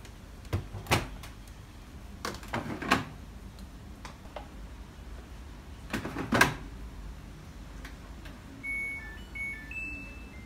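Front-loading Samsung washing machine being set up: clicks and knocks of its door being pushed shut and its plastic detergent drawer being opened and handled, then short high electronic beeps from the control panel as the buttons are pressed, near the end.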